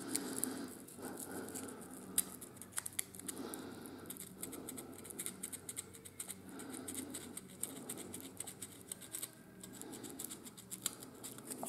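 A thin folded strip of 220-grit sandpaper scraping back and forth inside a small hole in a laser-cut wooden part. It makes faint, irregular scratching with many small ticks as it takes off laser residue and rough edges so that sliding parts will move with less friction.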